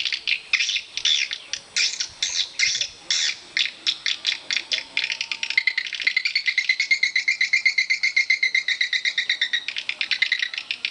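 Swiftlets calling: separate high, sweeping chirps at first, then from about halfway a fast, even run of rapid clicking twitters.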